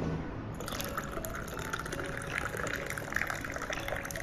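Liquid poured in a thin stream into a glass tea vessel, a steady splashing trickle that starts about half a second in.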